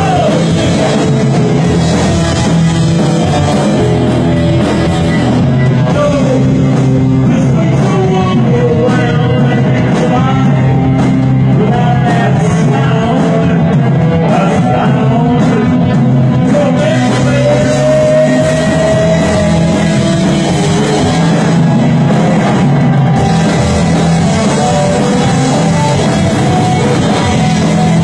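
Punk rock band playing, with a lead singer over loud electric guitars.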